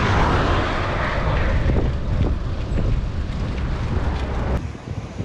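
Wind rushing over a handlebar-mounted camera's microphone on a moving bicycle, mixed with road noise from a car going past; the rumble drops away sharply about four and a half seconds in.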